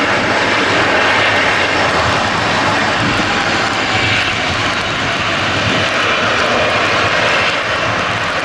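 Boeing 777-300 jet engines running loudly and steadily, a broad rumble with a faint high fan whine over it.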